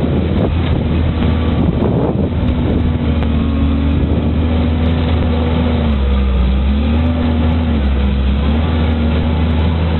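A large engine running steadily; its pitch sags about six seconds in and then recovers, as if briefly taking load.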